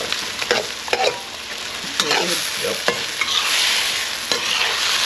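Lobster pieces being stirred in a wok of sizzling, bubbling ginger-and-garlic sauce, just boiled up with chicken stock and cornstarch. A steady sizzle with a few sharp knocks of the utensil against the wok.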